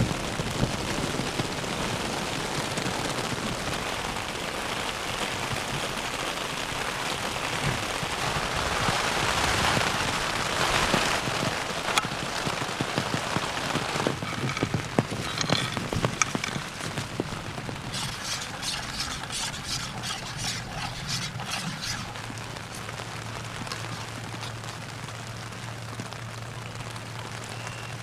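Rain falling steadily, swelling a little about a third of the way in, with scattered sharp taps and clicks through the middle.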